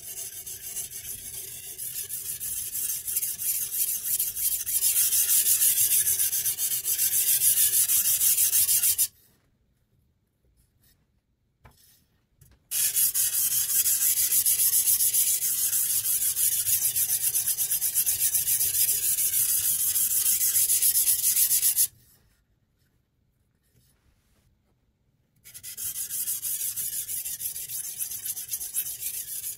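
A sharpening stone on the guide rod of a Sytools Beast guided knife sharpener being stroked back and forth along a steel chef's knife edge: a steady, high scraping hiss. It stops twice for a few seconds of near silence, about nine seconds in and again past twenty seconds.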